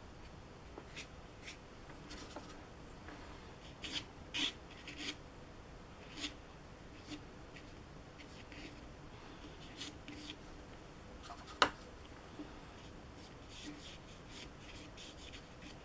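Faint, short scratchy strokes of a paintbrush on paper, coming a few at a time, with one sharp tap about three quarters of the way through.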